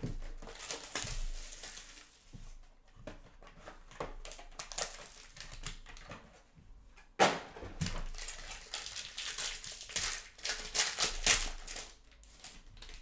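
Plastic shrink-wrap being crinkled and torn off a trading-card box, then the cardboard box being opened with a sharp crack about seven seconds in, followed by the crinkle of a foil card pack being handled.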